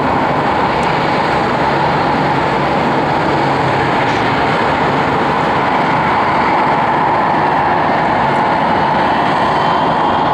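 Jet aircraft engines running: a loud, steady noise, with a faint rising whine joining near the end.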